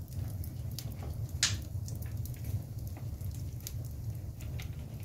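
Wood fire burning in a fireplace, crackling with scattered small pops and one louder crack about a second and a half in, over a low steady rumble.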